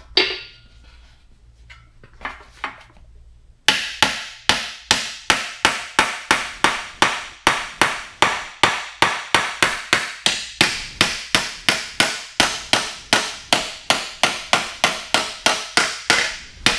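A steel hammer striking the sheet-steel flange of an early Ford pickup cab-corner panel held over the edge of a round steel-topped stand. There is one blow at the start and a couple of light taps. From about four seconds in comes a steady run of blows, roughly two and a half a second, each with a short metallic ring.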